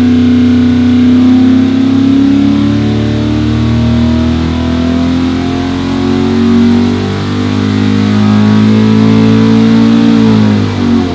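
329 cubic inch big-bore, short-stroke small-block Chevy V8 (400 block with a 283 crank) making a full-throttle power pull on an engine dyno, its pitch climbing steadily as it sweeps up to about 7,300 rpm. Near the end the throttle closes and the revs drop away quickly.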